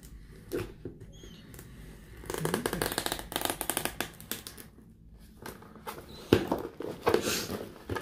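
A knife cutting the packing tape on a cardboard box: a rapid, scratchy rasping of the blade through tape and cardboard about two seconds in, then more scraping and handling of the box, with a sharp knock about six seconds in.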